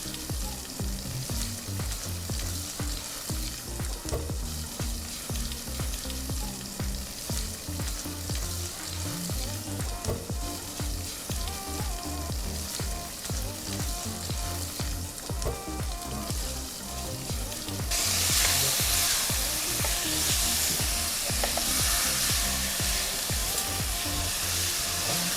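Chicken and vegetables sizzling as they fry in ghee in a pot, with light background music underneath; the sizzle gets louder about three-quarters of the way through.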